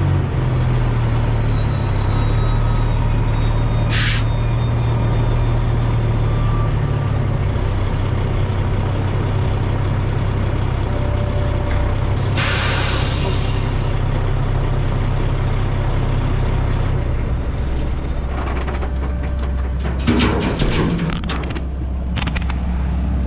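Heavy diesel dump truck engine running steadily, with a loud burst of air-brake hiss about twelve seconds in. The engine note drops lower later on, followed by a run of clattering knocks near the end.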